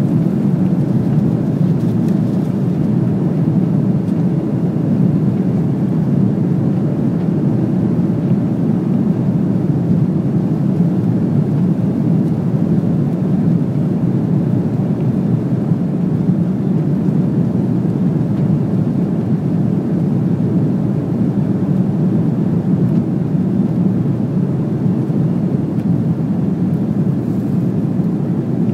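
Steady cabin noise of an Airbus A330-300 in flight, a deep even rush of engines and airflow with no change in pitch or level.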